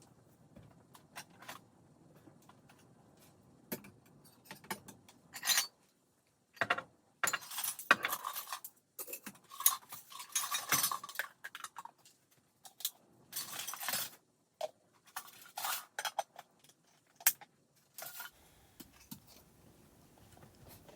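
Intermittent clinks and clatters of hard household objects being handled, with a busier stretch of clattering and scraping in the middle.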